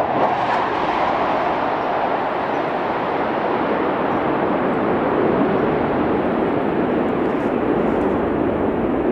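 Low-flying military jet passing overhead: a loud, steady jet roar that does not let up.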